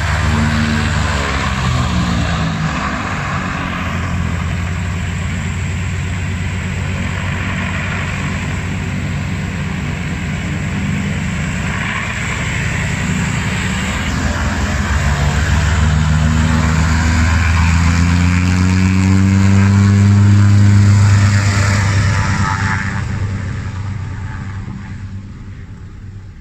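Antonov An-2 biplane's nine-cylinder radial engine running with the propeller turning. It rises in pitch and gets louder about two-thirds of the way through, is loudest a little after that, then fades away near the end.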